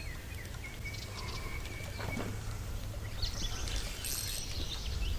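Birds calling: a long, thin held whistle starting about half a second in, then short chirps and quick glides near the end, over a low steady rumble.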